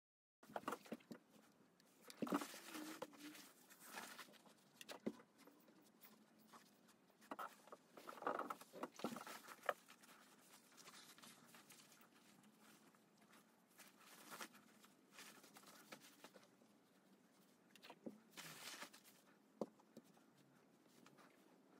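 Quiet, irregular rustling of silk kimono fabric and facing pieces being handled and pressed with a steam iron, with occasional light knocks and brief hisses.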